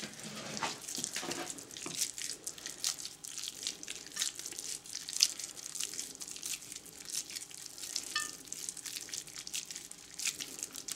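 Raw minced-meat mixture squishing and smacking between bare hands as a meatball is pressed closed around a cooked egg: a run of irregular small wet clicks.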